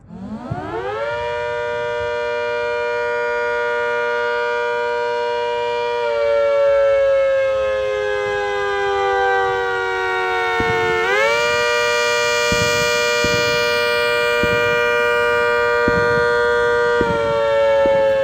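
Rotating multi-tone siren (the 'Hurricane') sounding the attack signal. It winds up to a high chord within a second and holds, then slides down in pitch from about six seconds in. At about eleven seconds it winds back up and holds, and near the end it starts falling again. Its loudness swells and fades as the horn rotates to face the listener and away.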